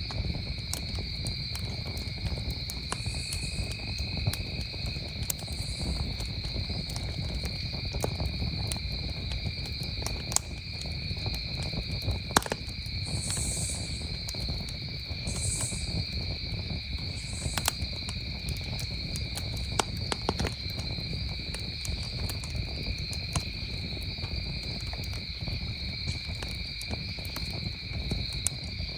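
Campfire crackling with scattered sharp pops over a low rumble of burning wood, under a steady chorus of crickets trilling at two pitches, with a few short, higher buzzes here and there.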